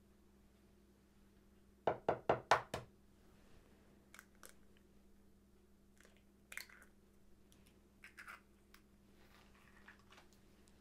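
An egg rapped several times in quick succession against the rim of a stainless steel mixing bowl to crack it, a run of about five sharp knocks, followed by a few faint clicks and cracks as the shell is pulled apart over the bowl.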